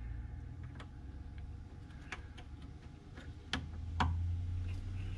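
Light clicks and ticks of plastic wiring connectors and harness being handled as a connector is pushed onto its plug, half a dozen scattered taps, over a low hum that grows a little stronger in the second half.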